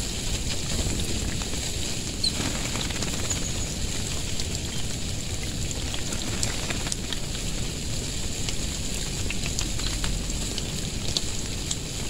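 Water from a garden shower spray pattering steadily on the ground and leaves like light rain, with scattered sharp drip ticks.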